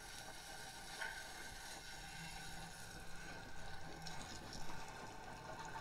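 Faint steady hiss of water running from an outdoor shower.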